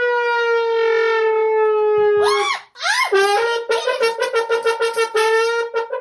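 A brass-like horn tone, played as a sound effect. It holds one long blast for about two seconds, sinking slightly in pitch, then makes a quick wobbling slide. From about three seconds in it gives a run of short, rapid toots on the same note.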